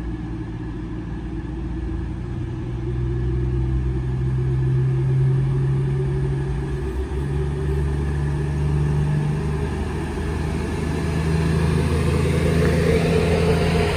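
Class 222 Meridian diesel multiple unit approaching along the platform, its underfloor diesel engines running with a steady low drone. The engine note shifts about halfway through, and the sound grows louder as the train draws alongside, with rising wheel and rail noise near the end.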